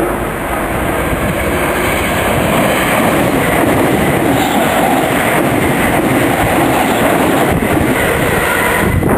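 National Express East Anglia electric multiple unit passing fast through the station close by: the steady rumble and rail noise of the passing train.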